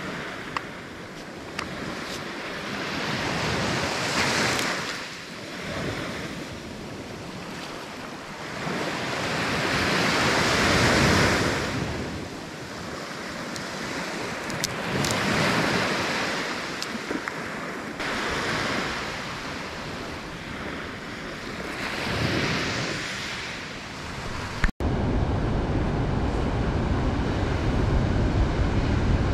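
Surf washing onto a beach, swelling and fading every few seconds. Near the end, after a sudden cut, a steady low rumble of wind on the microphone takes over.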